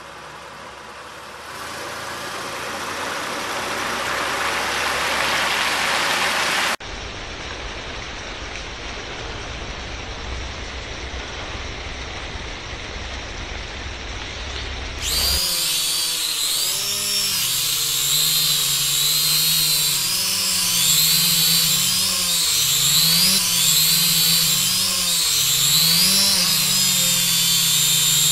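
Rushing noise that grows louder for about seven seconds, then a cut to a second noisy stretch with a low rumble. From about halfway in, the whine of a quadcopter drone's propellers takes over, its pitch wavering up and down; this is the loudest part.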